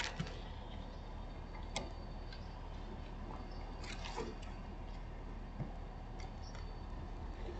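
Faint steady background hum with a few scattered soft clicks and ticks.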